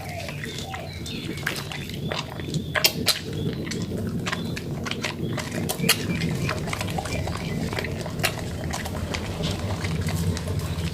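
Soaked, softened soap lather being worked and squeezed by hand: wet squishing with many small crackles and pops.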